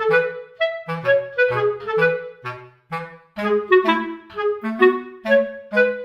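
Background music: a bouncy melody of short, separate notes, several a second.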